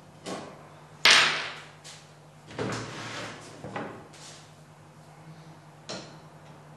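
Knocks and clunks of a screwdriver and hands against the wooden frame of a bentwood rocking chair as it is taken apart. One sharp, loud knock about a second in, then a few softer knocks.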